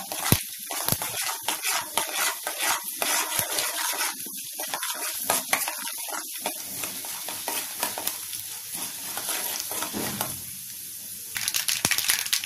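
Mustard seeds, chana dal and urad dal frying in hot oil in a kadai as a tempering, crackling and sizzling while they are stirred. About ten seconds in the crackling eases to a softer, steadier sizzle, then picks up again near the end.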